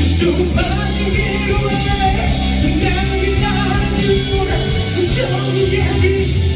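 Rock song played by a band, with a voice singing over it.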